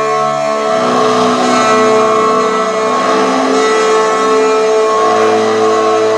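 Amplified electric cello bowed in a dense drone of held, layered tones. The lowest note changes about half a second in and again near five seconds in.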